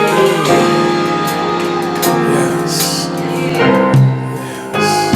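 Live gospel praise band playing a slow worship song between sung lines: sustained keyboard chords over a bass line, with no voice.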